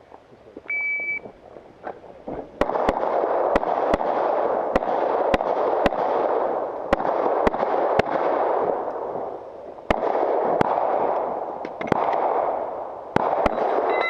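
A shot-timer beep, then a string of pistol shots: about eighteen sharp reports fired in quick pairs and singles over roughly twelve seconds, over a steady rushing noise. A short electronic beep sounds near the end.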